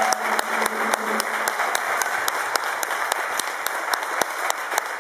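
Crowd applauding steadily: many hands clapping at once, audience and performers together.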